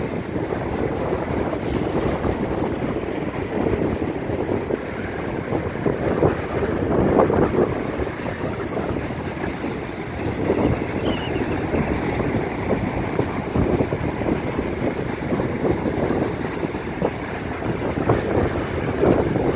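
Strong, gusty wind buffeting the microphone over heavy, storm-driven surf breaking on the beach.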